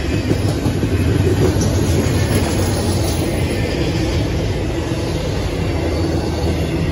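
Double-stack intermodal well cars of a freight train rolling past: a loud, steady rumble and rattle of steel wheels on the rails.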